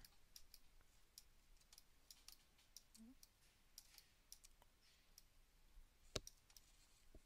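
Faint, irregular clicks of a computer mouse and keyboard, with one sharper click about six seconds in.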